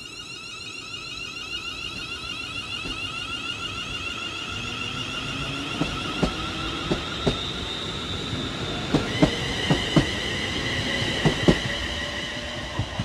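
ScotRail electric multiple-unit train running past, its electric traction whine slowly rising in pitch as it gathers speed. From about six seconds in, its wheels click in quick pairs over rail joints.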